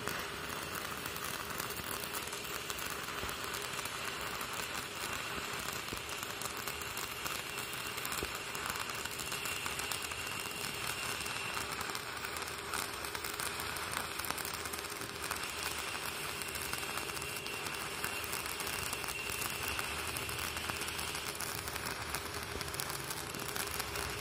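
Electric arc welding a steel barrel hinge onto a steel pipe: the arc strikes at the start and then crackles and sizzles steadily without a break.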